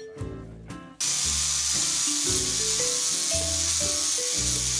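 A Black+Decker angle grinder grinding the steel axe head, starting suddenly about a second in as a loud, steady hiss with a thin high whine. Background music with clear melodic notes plays underneath, and before the grinder starts it is the only sound.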